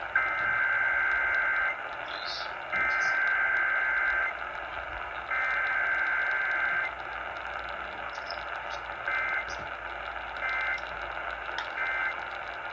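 Emergency Alert System (SAME) data bursts over NOAA Weather Radio static. There are three long bursts of the two-pitch digital warble, spaced about a second apart, then three short bursts: the header repeated three times, followed by the end-of-message code.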